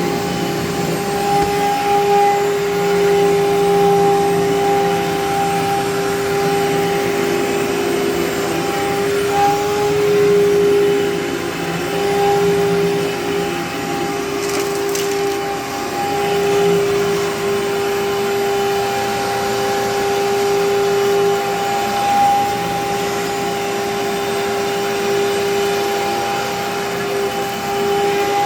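Amway ClearTrak upright vacuum cleaner running steadily: a constant motor hum with a steady tone over rushing air.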